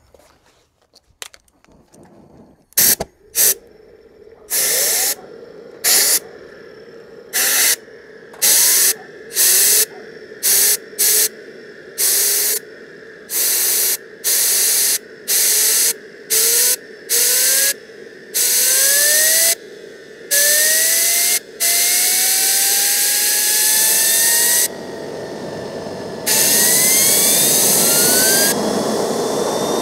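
Repeated short blasts of compressed air from an air blow gun into the intake of a homemade Kamps gas turbine, spinning the rotor up for a start. The engine's whine climbs steadily in pitch as the spool speeds up. From about two-thirds of the way in, the air runs as one long continuous blast.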